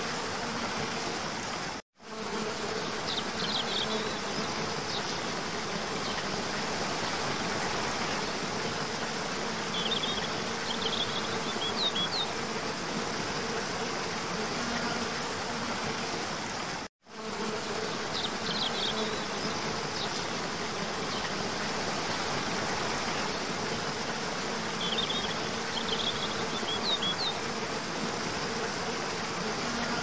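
Steady rush of a cascading forest waterfall, with a low steady hum under it and a few clusters of high chirps. The sound cuts out for a moment twice, about two seconds in and again past the middle.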